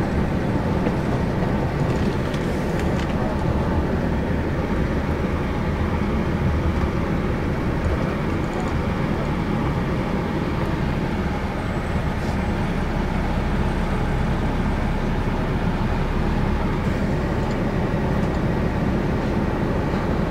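Inside the cabin of a 1992 Neoplan AN340/3 bus underway: its Detroit Diesel Series 60 inline-six diesel runs steadily under the rumble of tyres and road noise.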